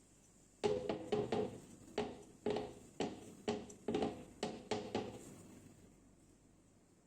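Kitchenware knocking repeatedly, about a dozen sharp knocks over four seconds, each ringing briefly.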